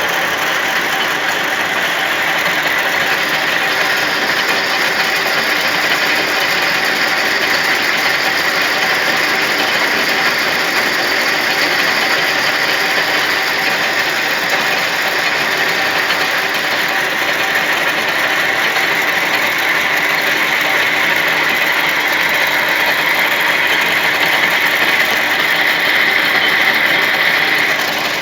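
Lathe running steadily, a continuous machine hum with several steady tones over a hiss.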